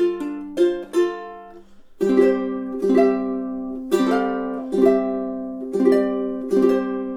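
Ohana TK-35G-5 five-string all-solid mahogany tenor ukulele played solo: single picked notes at first, then after a short pause, chords strummed about once a second.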